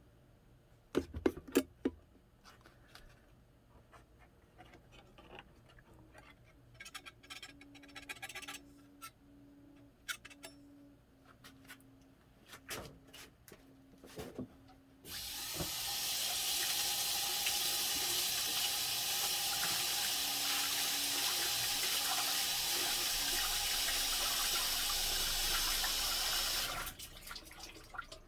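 Clicks and knocks of handling, then a tap running into a sink for about eleven seconds before it is shut off abruptly.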